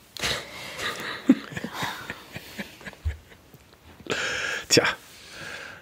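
A person's audible breaths and small mouth noises close to the microphone in a pause of conversation, including a short, stronger breath about four seconds in.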